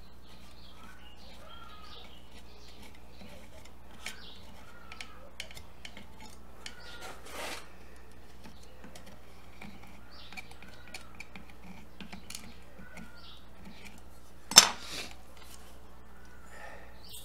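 Small metallic clicks and scrapes of a thin palette knife and steel chisel working glue into a crack in a wooden table leg, with one sharp louder clack about three-quarters of the way through.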